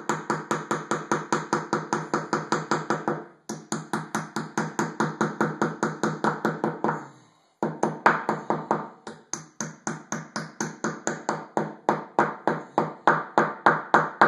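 Mallet tapping quarter-inch plastic mollies into holes drilled in a tiled wall: quick, light knocks about five a second, pausing briefly about three and a half seconds in and again around seven seconds.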